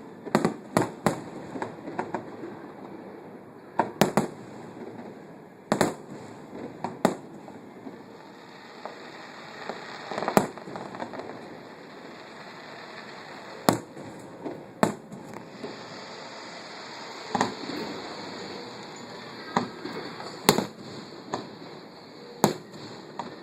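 Aerial fireworks bursting: a long run of sharp bangs at uneven intervals, some coming in quick clusters of two or three.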